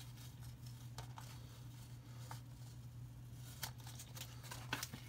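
A few faint clicks and taps from a small cardboard box being handled and opened by hand, over a steady low hum.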